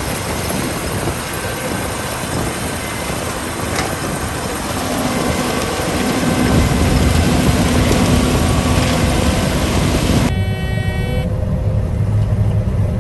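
Combine harvester running during corn harvest, heard from inside the cab: a steady machine noise that grows louder and deeper about six seconds in. About ten seconds in, the high hiss drops away suddenly and a short tone sounds.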